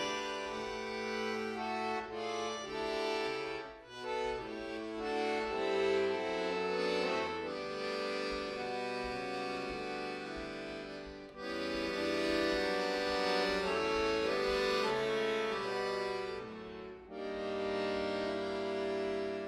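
Bayan, a Russian chromatic button accordion, playing solo: sustained chords and melody, with short breaks between phrases about 4, 11 and 17 seconds in.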